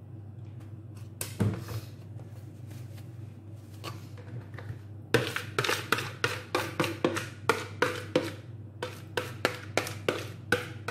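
Fingers scraping thick marinade out of a bowl onto a raw chicken: a quick run of wet slaps and squishes, about four a second, starting about halfway through. Before that, a steady low hum and one soft knock a little over a second in.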